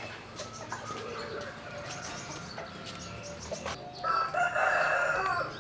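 A rooster crowing once, one long call starting about four seconds in.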